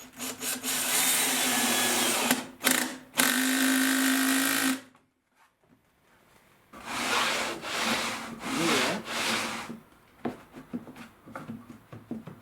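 Power drill running in bursts, working into plywood: one long run of about four seconds with a brief stop partway, then, after a short pause, three or four shorter bursts.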